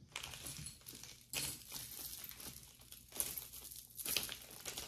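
Quiet, irregular rustling and crinkling from jewelry being sorted by hand, with a few sharper clicks of pieces knocking together.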